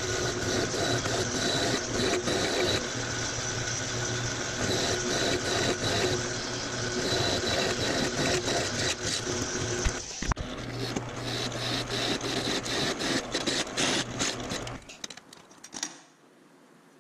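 Drill press running with a twist drill cutting through steel plate: a steady motor hum with the grinding chatter of the bit in the metal. It breaks off briefly about ten seconds in, then near the end the motor is switched off and spins down.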